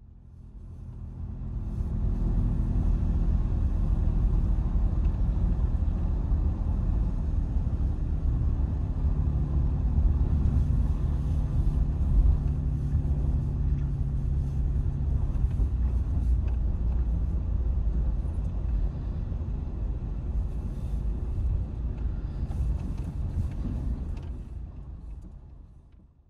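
Steady low rumble of a motor vehicle running, fading in over the first couple of seconds and out near the end.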